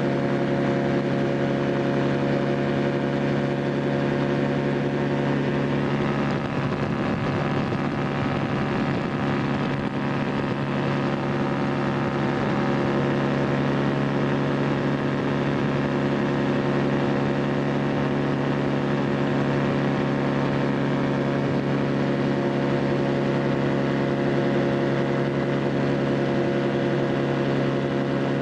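Poorboy ultralight's engine running at a steady pitch in flight, heard from the open cockpit, with a brief rush of rougher noise about six to ten seconds in.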